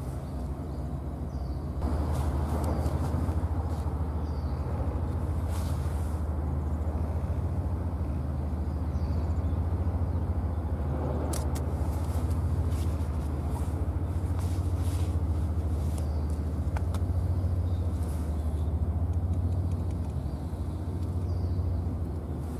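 A steady, low engine drone, a deep hum with a few faint clicks over it.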